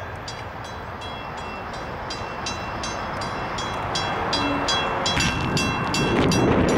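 Railroad grade-crossing bell ringing in quick, even strokes while the gates are still down and then begin to rise, over the low rumble of a train. A louder rushing noise builds near the end.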